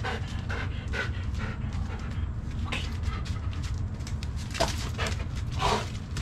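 Belgian Malinois panting in short, breathy puffs, irregularly spaced about every half second, over a steady low hum.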